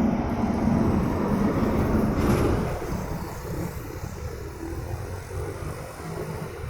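Road traffic at a crossroads: a vehicle's engine hum is loud for the first two seconds or so, then fades about halfway through, leaving a steady low traffic rumble.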